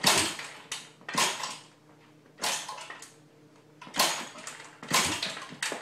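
Kick-starter of a 110cc X18 pocket bike being kicked over and over: about seven sharp metallic clacks, each with a short rattle, irregularly spaced about a second apart. The engine does not catch.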